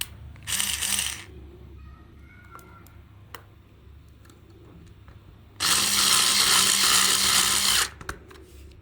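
A small handheld power tool running in two bursts: a short one under a second near the start, then a louder, steady run of about two seconds past the middle that cuts off sharply, with small clicks and handling knocks in between.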